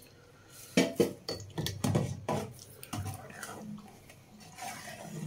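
A long metal spoon stirring thick kheer in a large aluminium pot, clinking and scraping against the pot in irregular knocks as the added sugar is stirred in.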